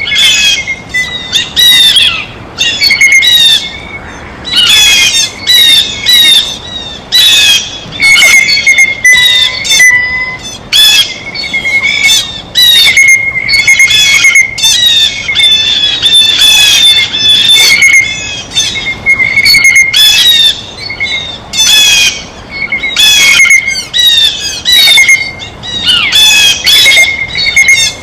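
Blue jays giving harsh, squawking calls over and over, several birds overlapping so the calling is almost continuous.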